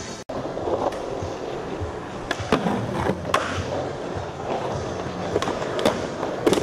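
Skateboard wheels rolling steadily over a smooth concrete floor, broken by several sharp clacks of the boards.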